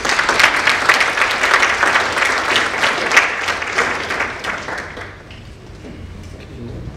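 Audience applauding, a dense patter of many hands clapping that dies away after about five seconds.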